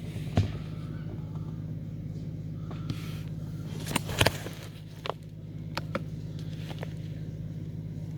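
A steady low machine hum with scattered clicks and knocks over it, the loudest a quick pair about four seconds in.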